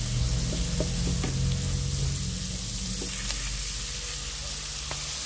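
Chillies and green tomatoes sizzling in hot oil in a wok as they are stirred, with a plastic spatula scraping and tapping the pan now and then.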